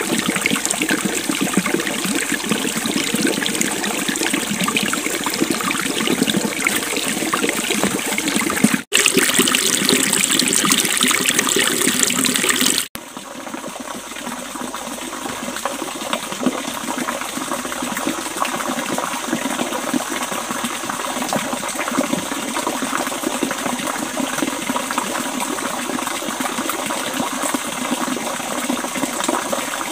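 Water of a stream running steadily. The sound jumps at two abrupt cuts, about nine and thirteen seconds in: louder between them, softer after the second.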